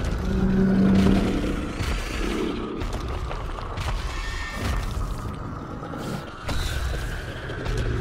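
Sound-designed dinosaur growls: a deep, loud growl in the first second, more growls after it, and a higher-pitched squawking cry about four seconds in, over a low rumble and background music.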